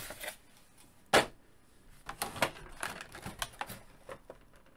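Hard plastic parts, such as a figure's clear flight stand and packaging tray, being handled: one sharp click about a second in, then a run of small clicks and taps.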